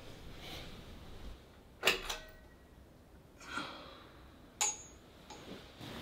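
A few separate household knocks and clicks, the loudest just under two seconds in with a brief ringing tone, and a sharp click with a high ring a little after the middle.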